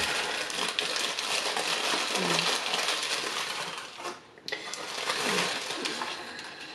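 White paper takeout bag crinkling and rustling as crispy fried bits are shaken out of it into a foam cup, with a brief lull a little past halfway.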